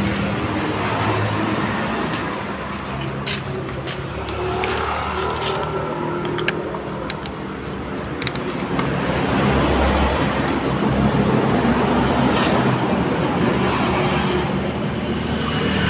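Steady motor-vehicle and traffic noise, with a few sharp clicks as a small cardboard parts box is handled and opened.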